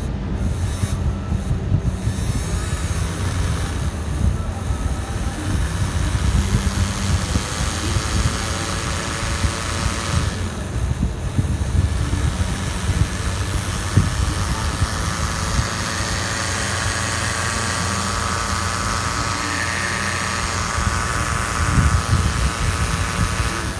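Small electric motor in a handmade miniature motorcycle, running steadily as it spins the model's rear wheel, with a mechanical rumble and a faint high whine.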